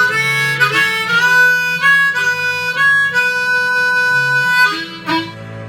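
Harmonica playing a fill of long held and bent notes over a guitar accompaniment; the harmonica drops out near the end, leaving the guitar.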